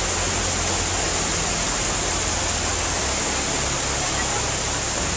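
Steady rushing hiss of a heavy typhoon downpour together with fast-flowing floodwater, unbroken and at an even level.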